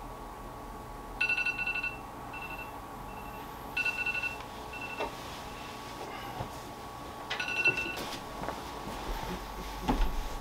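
Phone alarm going off: three clusters of quick electronic beeps about three seconds apart, with single beeps between them.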